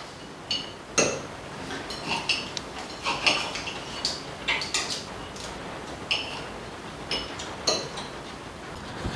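Cutlery clinking and scraping against plates as two people eat, a dozen or more short, irregular clinks.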